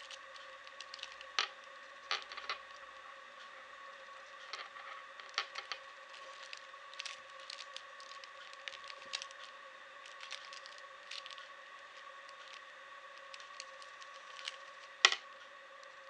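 Plastic Rubik's cube being turned by hand: irregular clicks and clacks as its layers are twisted, with one louder clack about a second before the end.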